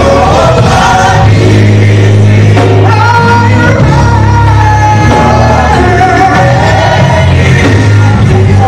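Gospel worship song: loud, steady music with sung vocals over held bass notes.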